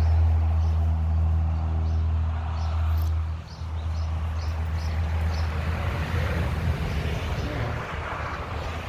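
A motor vehicle's engine running as a low, steady drone that drops away sharply about three and a half seconds in, leaving a rougher, fainter rumble.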